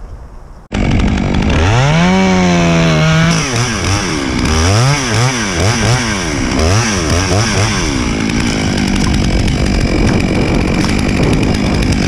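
Stihl top-handle two-stroke chainsaw cutting through an ash trunk. It comes in abruptly under a second in and revs up to full throttle. The throttle is then pumped up and down several times before the saw settles to a steadier run.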